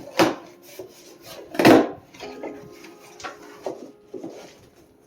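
Cardboard package being handled and opened with a box cutter: a few sharp knocks and scrapes, the loudest thump a little under two seconds in.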